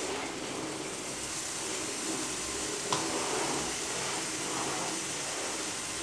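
Steady hiss of a lit gas stove burner under a flat griddle toasting bread, with a single sharp click about halfway through.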